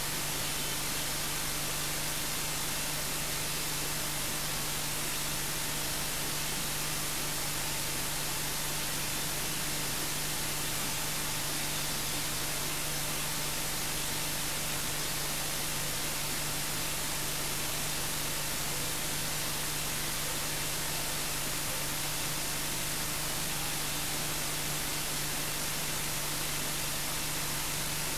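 Steady hiss of static with a faint, constant electrical hum underneath; the level never changes and no other sound comes through.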